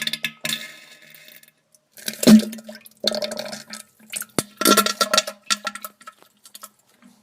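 Diarrhea sound effect: a series of wet, sputtering splatters with a buzzing fart-like tone, in several bursts with short gaps between. The loudest burst comes about two and a half seconds in, and it trails off into small crackles near the end.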